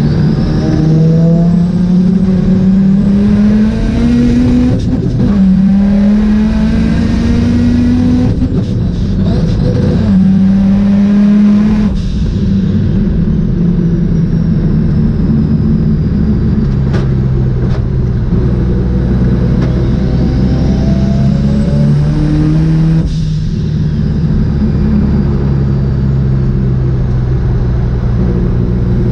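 Mazda RX-7's rotary engine accelerating hard, its pitch climbing with a break at each upshift about five, eight and ten seconds in. It then runs steadier for several seconds, revs up again and drops off sharply a little over twenty seconds in.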